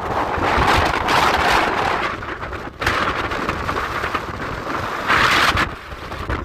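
Strong gusting wind buffeting the microphone, rising and falling in surges, with a hard gust about five seconds in before it eases off near the end.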